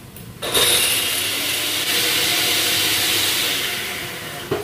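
Electric kitchen blender switched on about half a second in, running at a steady loud whir while blending ingredients, then winding down, with a knock near the end.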